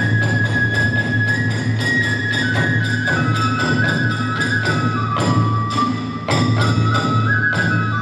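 Kagura festival music: a bamboo transverse flute (fue) plays a melody that steps gradually downward, over steady strikes of a large barrel drum and hand cymbals (tebyōshi), about three a second.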